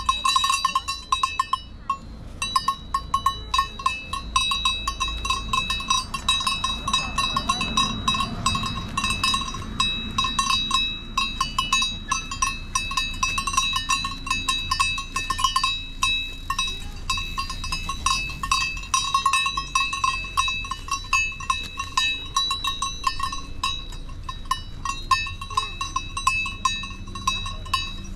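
Bells on grazing Valais Blackneck goats ringing and clinking continuously, with rapid, irregular strikes as the animals move their heads to feed.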